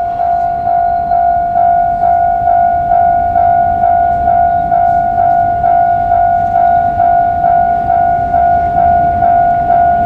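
Japanese railway level-crossing warning bell ringing, an evenly repeating electronic ding about twice a second, the signal that a train is approaching the crossing.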